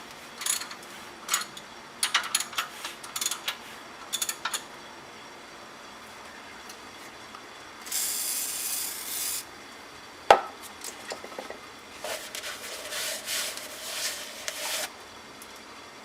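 Tools and engine parts handled during an engine teardown: a run of short clicks and scrapes, a brief hiss about eight seconds in, a single sharp knock about ten seconds in, then more scraping.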